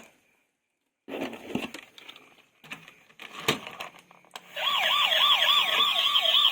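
Clicks and knocks of a plastic toy being handled. Then, about four and a half seconds in, a toy vehicle's electronic siren starts a fast yelp, its pitch swooping up and down about four times a second.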